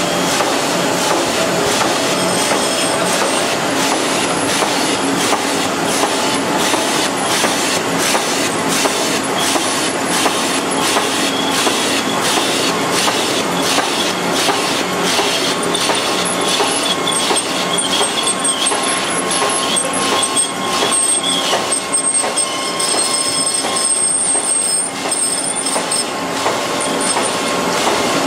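TM382D envelope film-sticking machine running, a steady mechanical clatter of its feeder and rollers with rapid ticking and faint high whines that come and go.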